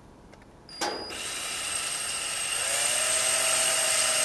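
Power drill switched on with a click about a second in, then running steadily and growing slightly louder as it bores a screw hole through a plastic licence plate.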